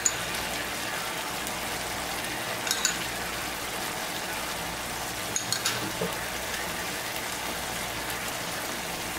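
Chicken, liver and heart stir-fry sizzling steadily in a frying pan as sauce is spooned in, with a few light clicks of the spoon.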